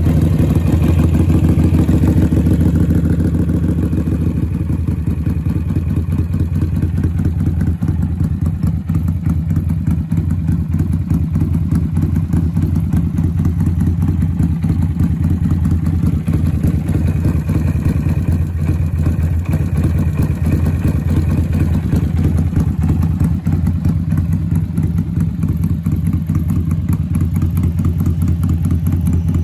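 Benda BD300 Chinchilla's 298 cc water-cooled V-twin idling steadily through a modified exhaust. It is a little louder and fuller for the first four seconds or so, then settles to an even idle.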